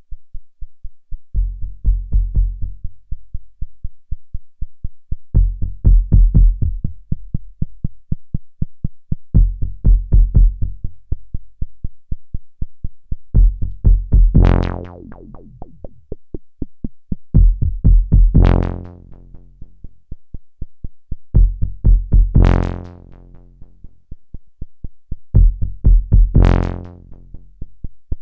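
Eurorack modular synthesizer patch playing a fast run of repeated sequenced notes through the ST Modular EFI filter. The notes fall in bass-heavy phrases about four seconds long, and from about halfway on the filter opens at each phrase into a bright, buzzing sweep as the knobs are turned.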